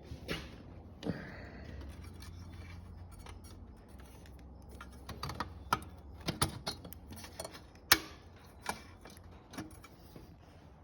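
Hand tools clicking and tapping against metal handlebar parts while screws are being undone, a run of irregular sharp clicks with the loudest about eight seconds in.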